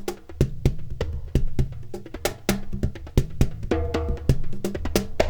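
Solo percussion playing a quick, busy rhythm: sharp wood-block-like clicks and drum hits over low bass-drum booms, with a few pitched ringing notes about four seconds in.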